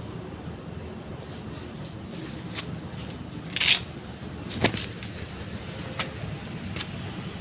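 Steady low rumble of road traffic on a nearby road, with a faint steady high whine over it. About halfway through comes a short hissing rustle, the loudest sound, followed a second later by a sharp click and a few lighter ticks.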